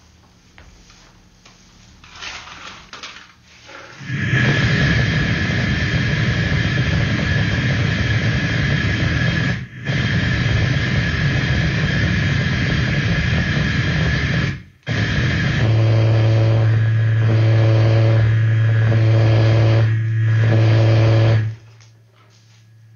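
Harsh electronic noise: a loud, dense static roar with a steady high whine, cut out briefly twice. It changes to a low buzzing drone with higher tones pulsing on and off, and stops suddenly near the end.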